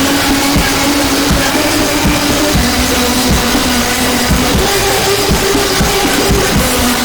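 Loud, dense music: frequent drum thumps under a thick wall of distorted noise, with a held low note that steps up in pitch about four and a half seconds in and falls back about a second later.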